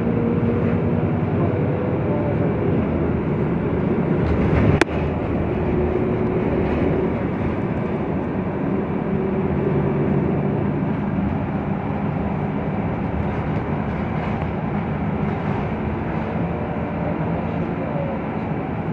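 Interior of a VDL Citea LLE city bus under way: engine hum and road and tyre noise, with the engine note shifting up and down as it drives. One sharp click about five seconds in.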